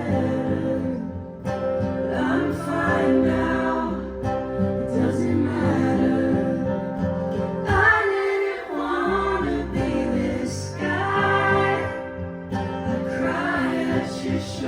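Live acoustic performance: women's voices singing in harmony over acoustic guitar.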